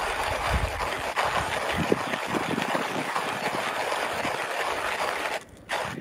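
Hand-crank manual coffee grinder grinding whole coffee beans: continuous grinding from the turning burrs, with a short break about five and a half seconds in.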